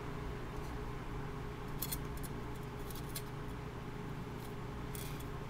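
A few short, light clicks of a kitchen knife cutting through a red bell pepper on a cutting board as it is sliced into thin strips, over a steady low background hum.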